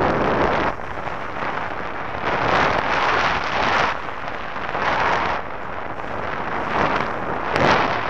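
Airflow buffeting a camera microphone in paragliding flight: a loud, steady rush of wind noise that swells and eases in gusts several times.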